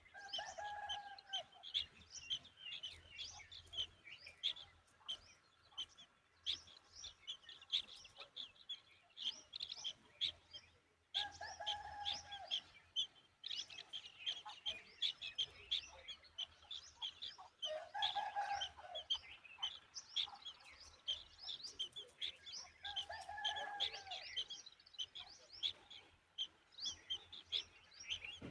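Birds chirping busily with many short, high chirps, and a lower, longer call breaking in four times.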